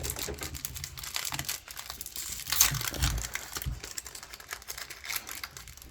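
Foil Pokémon booster pack wrapper crinkling and being torn open, a dense run of small crackles with one louder crackle about two and a half seconds in.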